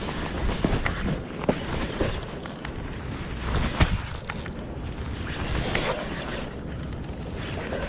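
Wind buffeting the microphone, with scattered knocks and clicks throughout; the sharpest knock comes a little under four seconds in.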